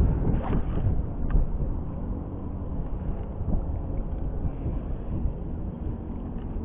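Wind buffeting the microphone: an uneven low rush, with a few sharp clicks in the first second and a half.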